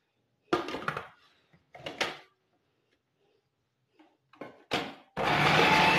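Plastic knocks and clicks as the lid and pusher of a food processor are fitted onto the bowl, then about five seconds in the food processor's motor starts with a steady whir and a faint high whine, chopping bread slices into crumbs.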